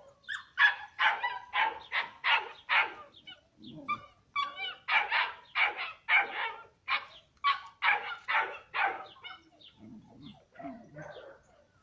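Dog barking repeatedly, about two barks a second, in two runs with a brief pause between, turning quieter near the end.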